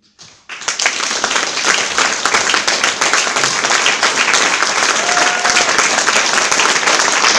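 Concert audience applauding: dense clapping from many hands breaks out about half a second in and holds steady.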